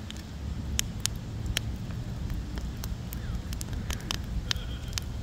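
Fire in a fire pit crackling: sharp, irregular pops over a steady low rumble.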